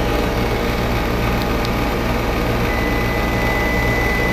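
Steady low mechanical hum of running equipment. About two-thirds of the way in, a Testo clamp meter's continuity beeper starts a steady high-pitched tone, sounding continuity from the compressor's capacitor terminal to ground: the compressor winding is shorted to ground.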